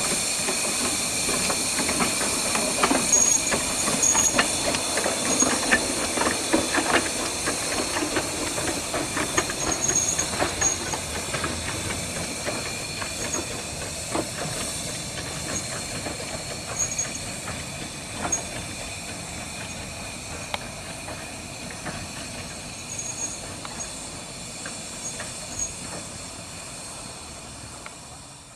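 Miniature (15-inch gauge) steam train: a steady hiss of steam with scattered clicks and clanks of the wheels and running gear. It grows gradually fainter.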